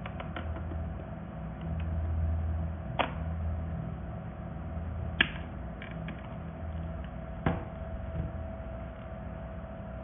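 Hard plastic clicks and knocks from a handheld vacuum cleaner's clear dust cup and body being fitted together and handled: three sharp clicks, about 3, 5 and 7.5 seconds in, with a few lighter ticks, over a low steady hum.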